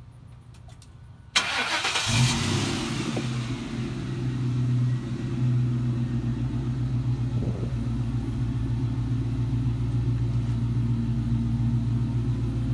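A 2000 Ford Mustang GT's 4.6-litre V8 is cranked by the starter about a second in, catches almost at once, and settles into a steady idle through its new mufflers. The engine is running on a freshly installed mass airflow sensor that replaced a dead one, and it idles smoothly.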